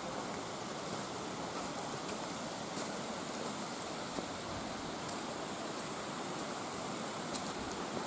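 Mountain stream rushing over rocks as a steady, even wash of water noise, with a few faint clicks.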